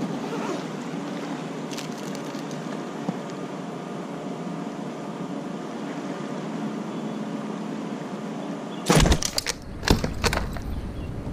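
Steady low background hum, then about nine seconds in a short burst of loud thumps and splashes as a landed pike is handled and thrashes in the landing net.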